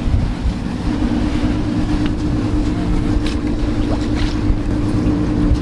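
Sportfishing boat's engine running steadily under way, a continuous low drone with rushing sea and wind; a steady hum joins about a second in.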